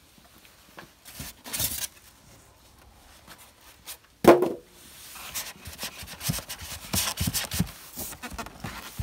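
Cardboard box and plastic wrapping being handled: a single loud thump about four seconds in, then a run of rustling and crinkling plastic with small cardboard scrapes and clicks.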